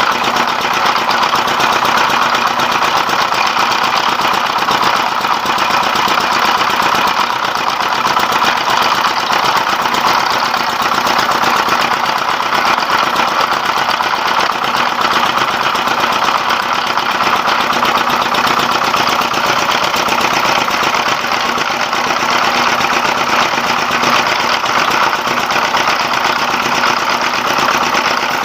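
A 24 hp 'dompeng' diesel engine running steadily at constant speed, driving a rice milling machine, with the dense clatter of the mill running alongside it.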